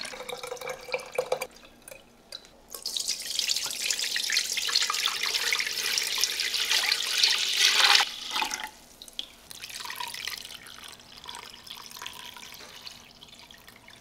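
A thick stream of corn milk poured into a pot of liquid, splashing steadily for several seconds. It cuts off about eight seconds in, leaving a thin trickle and drips.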